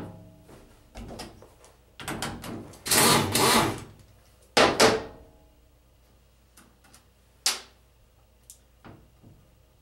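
Air-powered wrench spinning out a 10 mm bolt from a power steering pump's hose fitting, in a run about three seconds in and a shorter one near five seconds. A single sharp clack comes about seven and a half seconds in, followed by a few light clicks.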